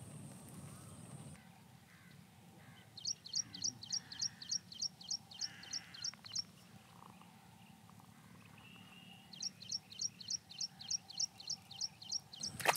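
A bird calling in two bouts of fast, short, sharp high notes, about three or four a second, each bout lasting about three seconds. A short burst of noise comes at the very end.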